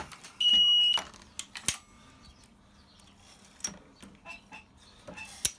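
A single short, high electronic beep about half a second in, followed by several sharp metallic clicks and knocks as a .308 cartridge is run into the bullet seating die on a reloading press.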